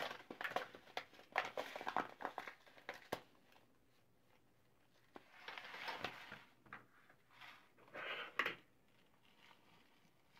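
Poly pellets (plastic stuffing beads) pattering and clicking as they are poured from a plastic spouted pouch into a stocking-lined sock, with crinkling of the pouch. A run of small ticks comes first, then after a pause two shorter spells of pouring and crinkling.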